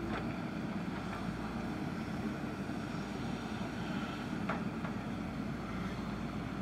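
JCB backhoe loader's diesel engine running steadily, with a few light knocks from the machine.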